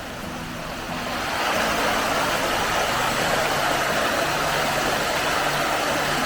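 Steady rush of a shallow stream flowing under a small bridge, growing louder about a second in and then holding even.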